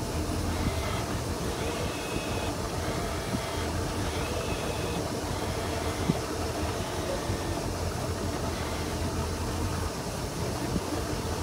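Fishing boat's engine running steadily at trolling speed, a low even hum under wind and water noise. A single sharp click about six seconds in.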